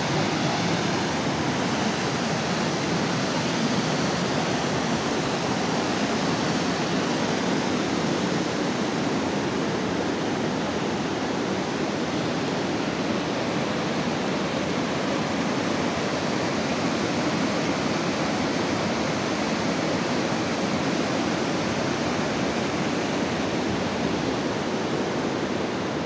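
Steady, unbroken rush of water pouring over a curved stone dam from a lake: an artificial waterfall heard close by.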